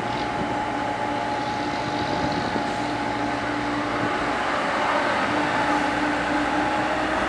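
Komatsu PC70 hydraulic excavator's diesel engine running steadily under load, with a constant whine over a continuous rumble.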